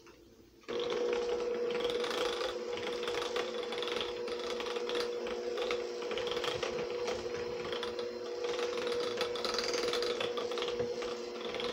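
KitchenAid electric hand mixer switched on about a second in and running steadily on low speed, its beaters whipping cream cheese frosting.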